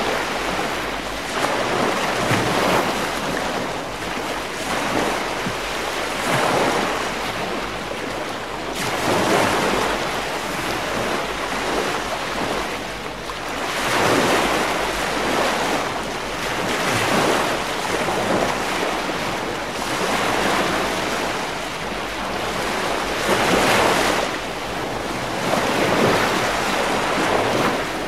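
Ocean surf breaking and washing in, each wave swelling and fading every few seconds.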